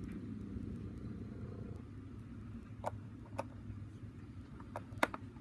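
A handful of sharp plastic clicks in the second half as a Lego minifigure is handled and pressed onto the studs of a Lego boat's deck, the last click the loudest, over a steady low background hum.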